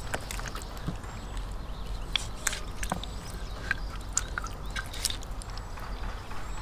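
Marinated raw poultry being pushed by hand onto a metal skewer: scattered wet squelches and sharp clicks of the skewer, with a steady low background hum.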